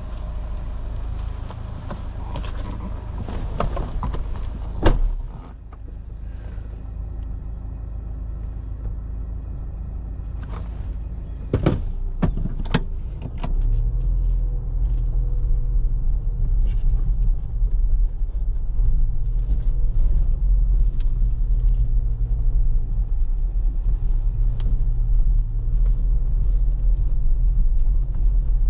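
Car being driven: a steady low engine and road rumble, with several sharp knocks and rattles in the middle. The rumble gets louder about halfway through and stays so.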